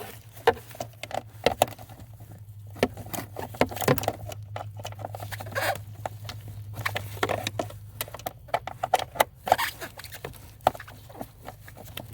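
Irregular clicks and light knocks of a hand tool and plastic parts while the top mounting bolt of an HVAC blend door actuator is worked loose. There is a cluster of quicker clicks about nine seconds in.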